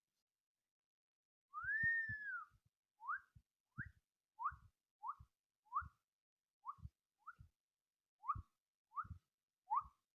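A young girl whistling softly: about a second and a half in, one long note that rises and then falls, followed by a run of about ten short notes that each slide upward, roughly one and a half a second. There is a faint low thump under each note.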